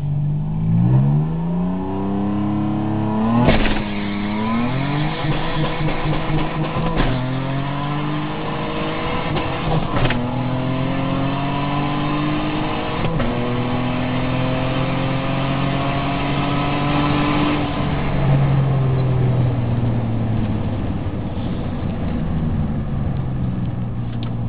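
Nissan Maxima 3.5 turbo's V6 heard from inside the cabin at full throttle in a drag launch. The revs climb and break at four upshifts, about one every three seconds. The note then holds, and falls away about 18 seconds in as the throttle is lifted at the end of the run.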